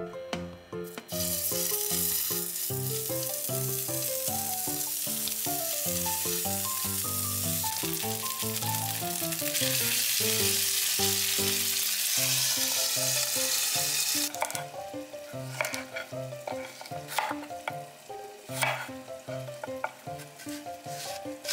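Meat-wrapped rice balls sizzling steadily as they fry in a nonstick pan. About ten seconds in, water is poured into the hot pan and the sizzle grows louder, then stops suddenly at about fourteen seconds. A chef's knife then makes a series of cuts through a bell pepper on a wooden cutting board, over light background music.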